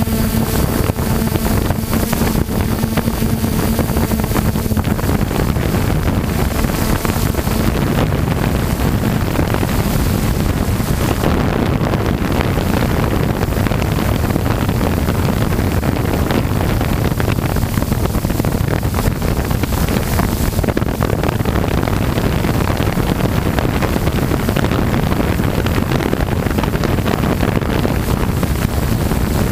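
Electric radio-controlled helicopter in flight, heard through its onboard camera's microphone: steady rotor noise and wind buffeting the mic. A hum fades away over the first few seconds.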